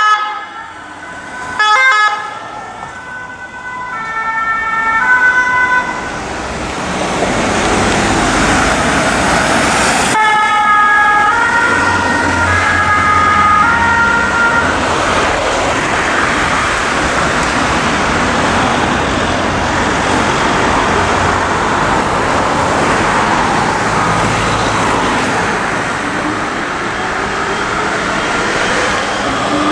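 French emergency-vehicle two-tone sirens alternating between a high and a low note, heard in two spells in the first half, over loud, steady road traffic noise that dominates the rest.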